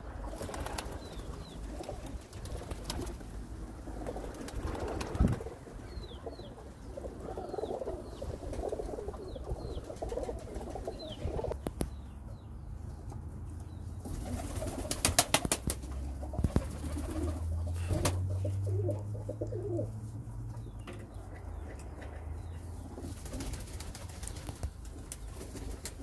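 Domestic pigeons cooing in a loft, with short high chirps in the first half and a quick run of sharp clicks about fifteen seconds in.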